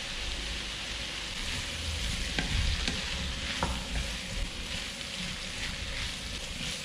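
Diced tofu and vegetables sizzling in hot oil in a frying pan while a spatula stirs them: a steady sizzle with the spatula's scrapes and a couple of sharper knocks against the pan a few seconds in.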